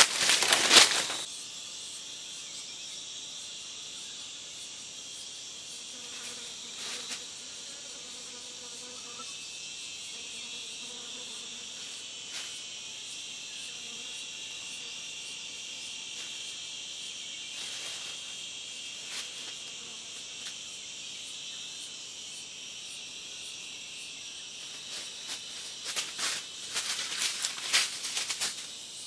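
Steady, high-pitched chorus of insects such as crickets, droning without a break. Loud rustling cuts across it in the first second and again near the end.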